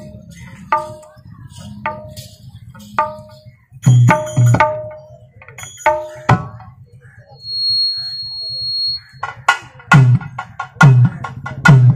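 Drama accompaniment on a tuned hand drum: ringing strokes about once a second, then a busier flurry, a brief high steady tone in the middle, and heavy deep strokes near the end.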